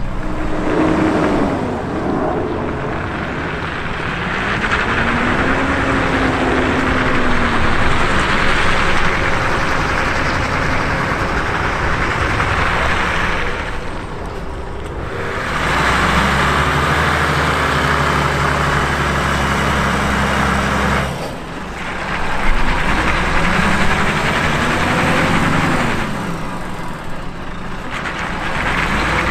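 Heavy truck's diesel engine running, its pitch rising and falling, under a strong hiss that drops away briefly a few times.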